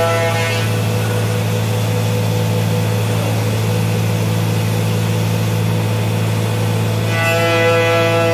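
CNC router running: a steady machine hum with a high, steady whine from the spindle that gives way to an even rushing noise about half a second in and returns about seven seconds in.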